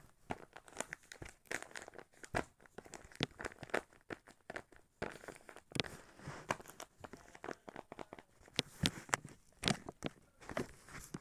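Handmade paper squishies being handled and squeezed: paper crinkling and crackling in quick, irregular bursts.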